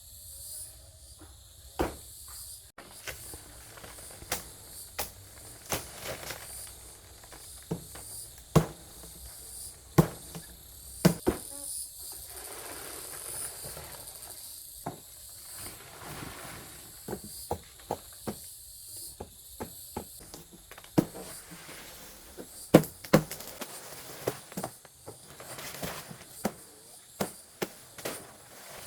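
Insects calling steadily and high-pitched in the background, with irregular knocks, taps and rustles of someone working close by; the sharpest knocks come near the middle and again about three-quarters of the way through.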